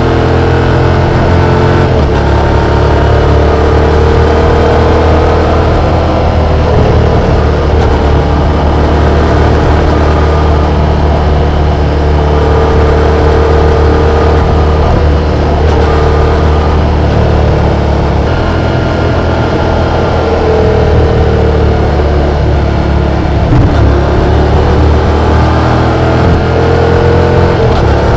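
Yamaha XSR700's 689 cc parallel-twin engine running under way, recorded onboard. The engine note holds steady for stretches and changes pitch several times as the throttle and revs change.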